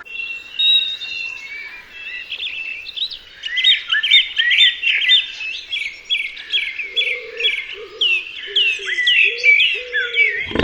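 Birdsong: a fast run of short, high, downward-slurred notes. From about seven seconds in, a much lower-pitched call repeats in short notes beneath it.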